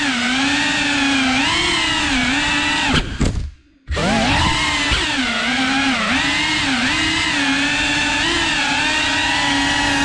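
Cinewhoop FPV drone's motors and ducted propellers whining, the pitch wavering up and down with the throttle. A little past three seconds in the throttle is chopped: the whine falls away almost to silence for under a second, then comes straight back.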